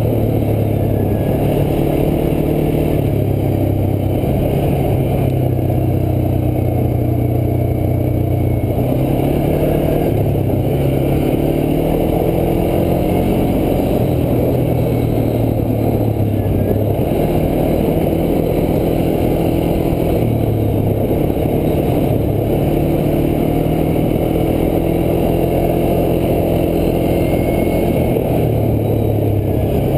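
ATV engine running under way on a gravel trail, its pitch shifting up and down several times as the throttle and speed change, over a constant low rumble.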